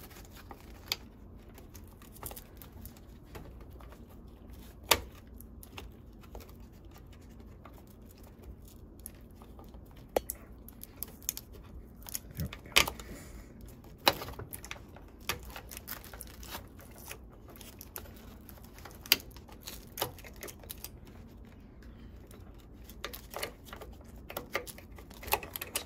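Irregular small clicks, taps and rustles of hands working among wiring and plastic valve parts under a draft beer dispenser while prying the cup sensor off the valve's plunger head. A few sharper clicks stand out, about five seconds in and again around thirteen, fourteen and nineteen seconds.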